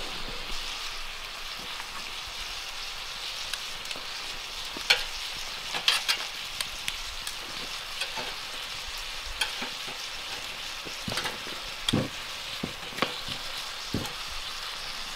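Cast iron skillet of fajita peppers and onions sizzling steadily over a campfire, with scattered sharp pops and clicks.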